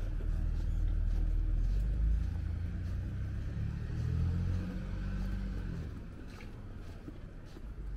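City street traffic: a motor vehicle's engine rumbling close by, then fading away after about six seconds.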